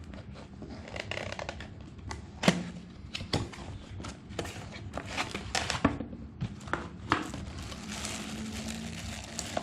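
A fishing-reel box being opened by hand and its packaging handled: a run of rustles and scrapes with several sharp clicks and knocks, the loudest about two and a half seconds in.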